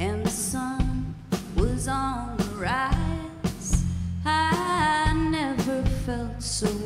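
A live band playing a song with a woman singing the lead vocal. Steady bass and regular drum strikes sit under her held, gliding notes, with guitars and keyboards.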